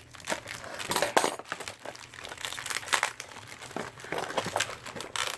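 Plastic packaging crinkling and rustling while being handled, with irregular sharp clicks and snaps.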